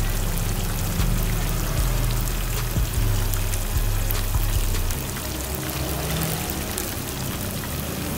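Battered chicken wings deep-frying in a large wok of hot oil: a steady sizzle and bubbling with fine crackles. Background music plays underneath.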